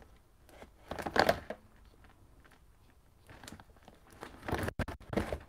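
Rustling and light knocks of craft supplies being handled and searched through, in short bursts about a second in and again near the end.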